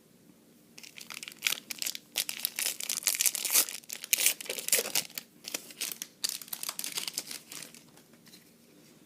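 Trading card booster pack wrapper being torn open and crinkled by hand, a dense run of crackling and tearing that dies away near the end.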